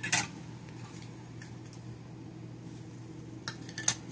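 Light metal clinks of canning lids being taken from a steel bowl and set on glass canning jars: one just after the start, two close together near the end, over a steady low hum.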